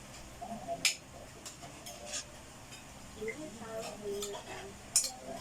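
Cutlery clinking and tapping against plates and bowls while people eat, a handful of sharp irregular clinks with the loudest about a second in and near the end, over low murmuring voices.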